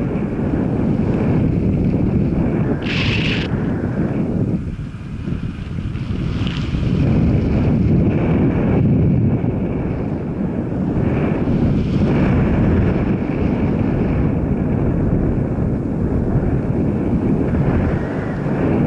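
Wind buffeting the microphone over the steady noise of a moving vehicle, with a short high hiss about three seconds in.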